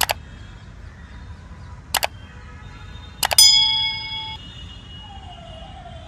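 Subscribe-button animation sound effects: a mouse click, a second click about two seconds later, then a double click followed by a bell-like notification ding that rings out for about a second, over a faint steady background.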